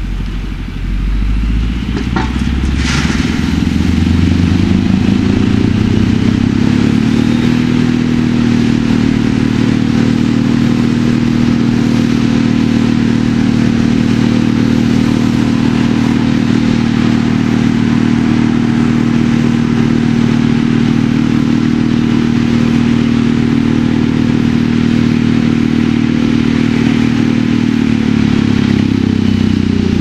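Large wood chipper's engine speeding up over the first several seconds, running steadily at high speed, then dropping back near the end. A single sharp crack sounds about three seconds in.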